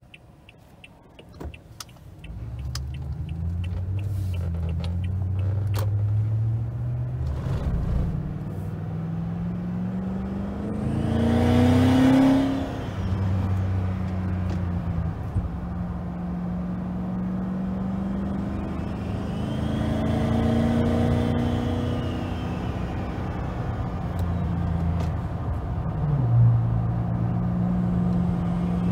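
Turbocharged 2021 Toyota Tundra 5.7-litre V8, heard from inside the cab. It starts quiet, then pulls away with the engine note climbing to a loud peak about twelve seconds in before settling into a steady cruise. A second pull around twenty seconds brings a faint high whine that rises and falls, and near the end the engine note drops suddenly.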